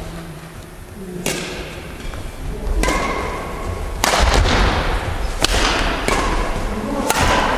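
Badminton rackets striking a shuttlecock in a rally: five sharp cracks, about one every second and a half, each ringing with echo around a large wooden-floored gym hall.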